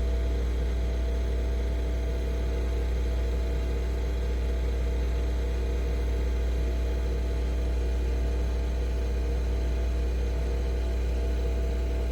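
Nespresso Vertuo Pop+ coffee machine running through a brew cycle: a steady motor hum and whir with a deep low drone, unchanging throughout.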